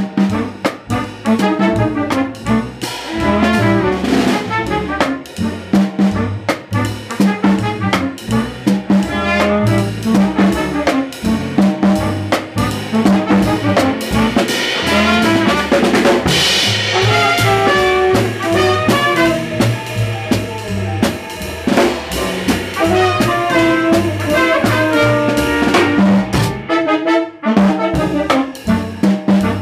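Live small-group hard bop jazz: horn lines over drum kit and double bass, with the drums and cymbals close and prominent. A bright cymbal crash comes about halfway through, and the band drops out briefly near the end.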